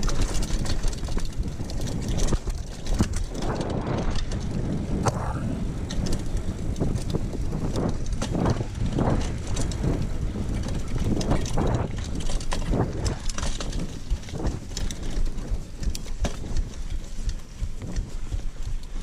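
Mountain bike ridden over a dirt trail: steady tyre rumble and wind noise on the microphone, broken by frequent short rattles and knocks from the bike over bumps.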